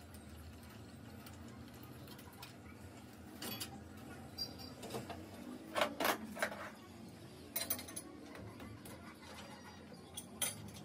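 Scattered metal clinks and knocks from a crankshaft being set up and clamped in a lathe, steel parts and tools striking the fixture and chuck. The loudest are two sharp knocks close together about six seconds in, with a few more near the end.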